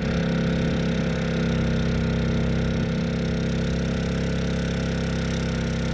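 Honda EU2200i inverter generator's single-cylinder four-stroke engine, converted to run on propane, running steadily with eco throttle off under a heavy load of about 1,700 to 1,800 watts.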